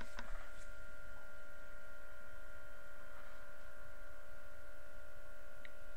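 Steady electrical hum with a faint high whine, with a few light clicks just after the start.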